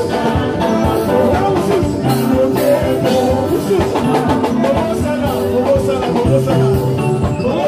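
Live church praise music: a worship band playing with voices singing over a steady beat.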